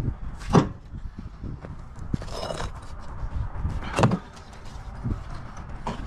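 Broken concrete sidewalk slabs being dropped into a skid steer's steel bucket: two heavy clunks, one about half a second in and one about four seconds in, with scraping and rubble shifting between them over a low steady rumble.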